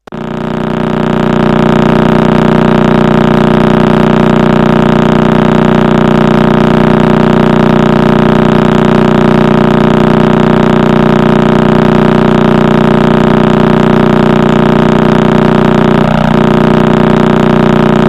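Crab Nebula pulsar's signal turned into audio: a loud, steady droning hum made of many held tones stacked together, fading in over the first second or so.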